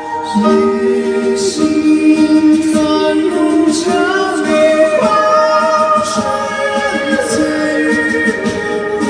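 Live concert music: a singer holding long sung notes without words over the band, the pitch shifting every second or so.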